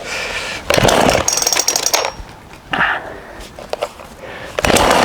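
Two pulls on a two-stroke chainsaw's recoil starter cord, about a second in and again near the end, the engine rattling over each time without catching.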